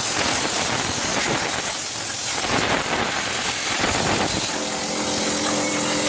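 Pneumatic spray gun blasting a hissing jet of wash spray onto a plastic car AC unit housing. A steady hum joins about four and a half seconds in.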